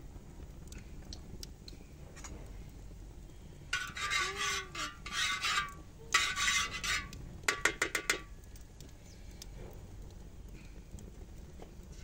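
Metal spoon scraping around an iron frying pan of oil on a wood fire, in two spells of a second or two, then a quick run of about six metal-on-metal clinks.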